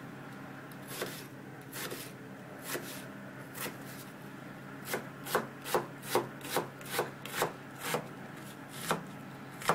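Kitchen knife chopping a red onion on a wooden cutting board: a few separate cuts, then from about five seconds in a quick, even run of about eight chops, each knocking on the board, and two more near the end.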